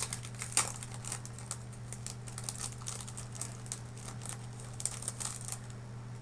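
Small clear plastic bag crinkling in the hands as it is opened and a sheet of cube stickers is drawn out: irregular crackles, loudest about half a second in, fading out near the end, over a steady low hum.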